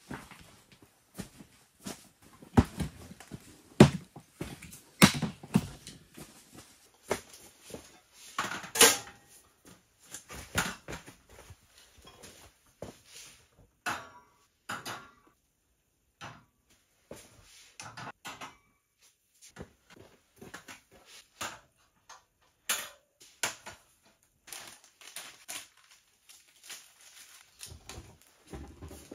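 Irregular clicks, knocks and rustles of objects being handled, with a few sharper knocks in the first ten seconds.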